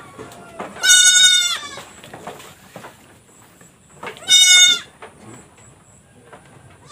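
Goat screaming twice in loud, high-pitched bleats, the first about a second long and the second shorter, a cry of pain from an injection of cough and flu medicine.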